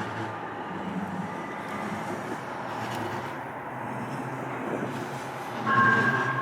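Light rail train running, a steady rumble and rail noise. About five and a half seconds in, a louder steady two-note tone starts and holds.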